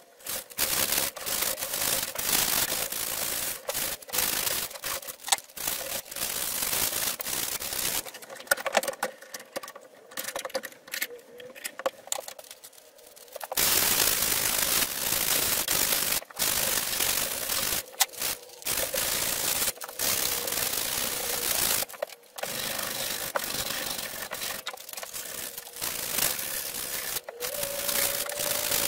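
Sanding sponge scrubbing rust off a steel double-bit axe head by hand, in quick back-and-forth strokes. The strokes ease off and go quieter for several seconds about a third of the way through.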